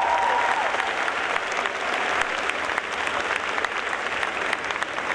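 Audience applauding, a dense patter of many hands clapping that slowly thins a little.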